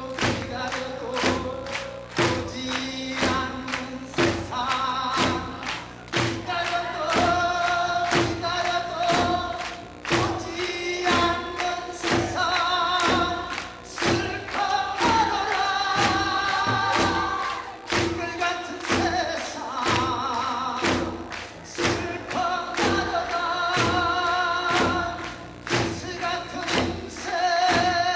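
A male singer sings long, wavering notes with wide vibrato over a steady beat of drum strikes, about two a second.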